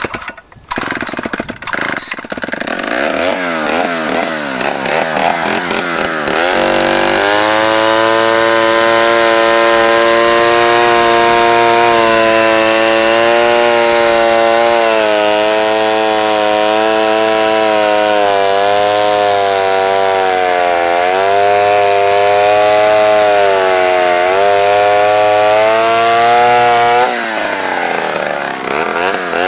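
1966 Poulan Super 31 two-stroke chainsaw starting with a few clattering pulls, then running and climbing. About seven seconds in it goes to full throttle and holds high revs, its pitch sagging and recovering as it bogs down in the wood. It drops off briefly near the end.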